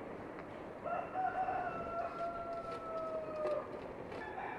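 A rooster crowing: one long call that starts about a second in and lasts nearly three seconds, its pitch sinking slightly toward the end. A second crow begins near the end.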